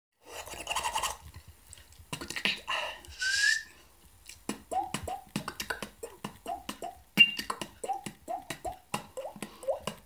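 Beatboxed water-drop sounds made with the mouth. From about halfway there is a run of soft clicks, each followed by a short rising whistled 'bloop', about two a second. Before them come a few noisy hissing and rattling mouth sounds.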